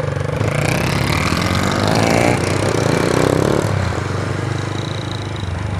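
Motorcycle engine running as the bike is ridden, with wind rushing over the microphone. The sound swells a little about two seconds in and eases after about four seconds.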